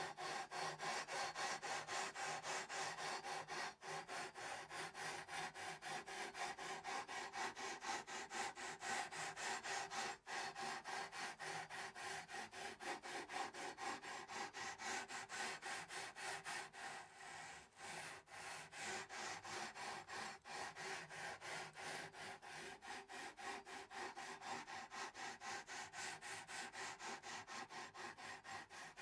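#320 sandpaper on a long StewMac leveling beam rubbing back and forth across a guitar's metal frets in quick, even, repeated strokes: the frets are being leveled after a refret.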